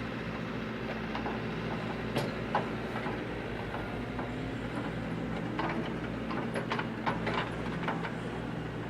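Diesel heavy equipment (excavator, backhoe or roller compactor) running steadily at a work site, with scattered sharp clanks and knocks, several coming close together past the middle.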